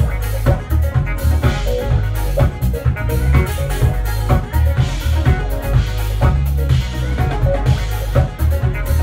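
Live livetronica band playing a breakbeat groove: a drum kit driving the beat over a heavy, booming bass line and electronic keyboards.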